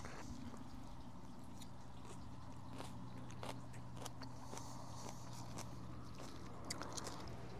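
Faint sounds of a person eating salad: chewing and crunching of lettuce, with scattered light clicks throughout, over a low steady hum.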